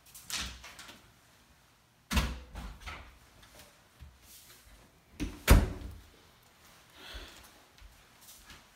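Closet door and its contents being handled: a few knocks and bumps, the loudest a sharp door thump a little past halfway.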